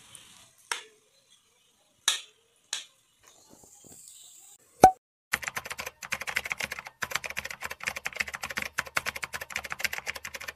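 Editing sound effects: a few short clicks, then a single bright cartoon pop about five seconds in, followed by a dense, rapid run of typing-like clicks lasting about five seconds.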